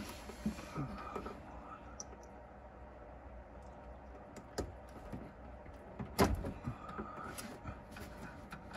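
Scattered small clicks and handling noise as hands fit wire connectors into T-taps on a car's factory wiring harness, with one sharper click about six seconds in.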